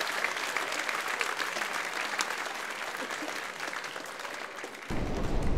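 Audience applauding, a dense clatter of many hands clapping. Near the end it cuts off suddenly into a steady low rumbling noise.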